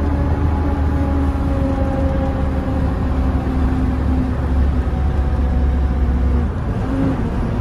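Mercedes-Benz Atego truck's diesel engine running steadily with a heavy low drone, the loud roar the driver says is still there and not normal for the truck. The deepest part of the drone fades about six and a half seconds in.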